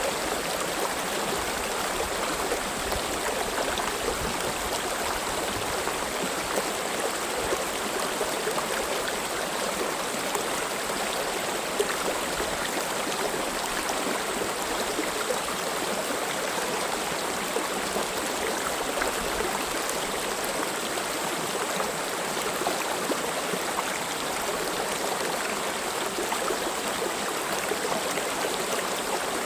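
Mountain valley stream running over rocks, a steady rush of water with constant small splashes and gurgles.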